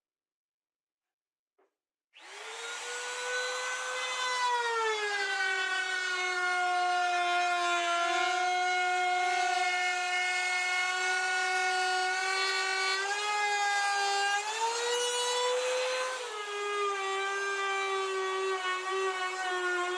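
Compact trim router starting up about two seconds in and running with a loud, steady high whine while routing plywood; its pitch settles lower as it cuts, rises briefly near the end, then drops again.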